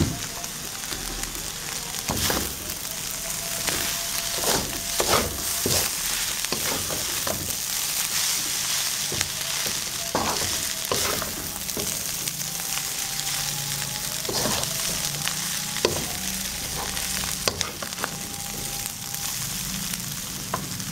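Stir-fried noodles and vegetables sizzling steadily in a non-stick wok while a wooden spatula tosses them, with irregular scrapes and knocks of the spatula against the pan.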